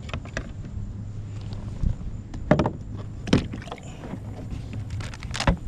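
A few sharp knocks and clatter over a steady low hum, typical of fishing gear being handled in a small boat.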